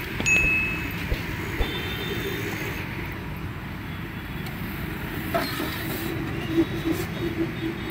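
Steady rumble of road traffic, with a brief high beep shortly after it begins.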